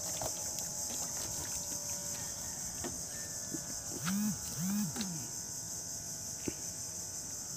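Steady high-pitched drone of insects, with two short low hummed voice sounds from a person about four and five seconds in.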